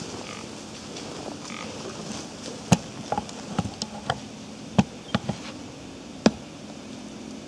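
About ten sharp, irregular clicks and ticks in the middle stretch, three of them much louder than the rest, over a steady low hum.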